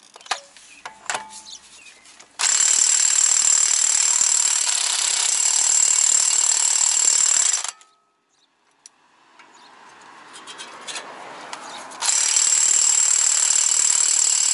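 Cordless impact wrench hammering on a Honda Accord's 36 mm front axle nut: two long bursts, the first about five seconds long starting a couple of seconds in, the second starting near the end, with light socket clinks before the first. The nut does not come off, which the mechanic puts down to the gun not being strong enough.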